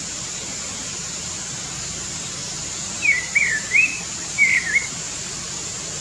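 A songbird calling: a quick run of short, warbling chirps about three seconds in, lasting under two seconds, over a steady high hiss.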